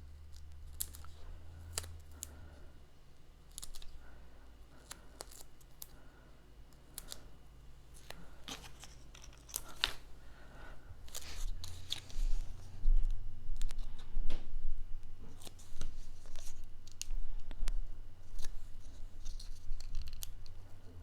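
Scissors snipping and paper backing being peeled off adhesive foam squares, with scattered small clicks and rustles of cardstock being handled, busier in the second half.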